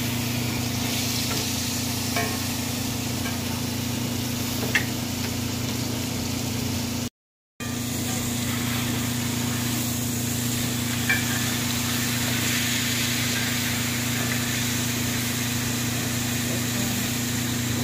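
Steak sizzling steadily in a hot cast iron skillet over a steady low hum, with a couple of sharp clicks. The sound cuts out briefly about seven seconds in.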